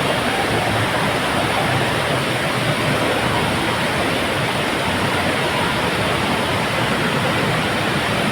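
Heavy monsoon rain pouring down, a steady rushing hiss with no breaks.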